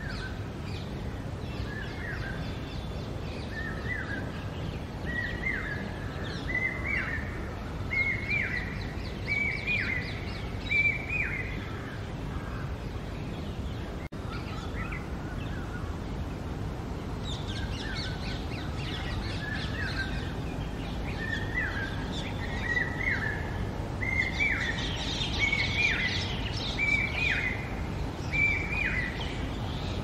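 Common hawk-cuckoo (brain-fever bird) calling its repeated shrill 'brain-fever' phrase in two series separated by a pause of several seconds. The phrases come about every second and a half and climb in pitch and loudness as each series goes on. Other birds chirp faintly behind it over a steady low background noise.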